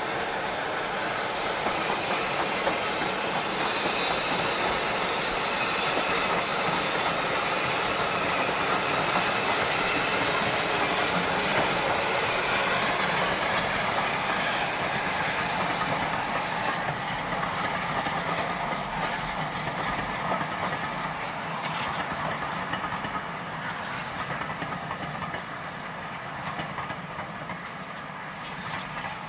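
Steam locomotive hauling a train of passenger coaches past, the wheels rolling along the rails. The sound is steady at first and fades over the last third as the train draws away.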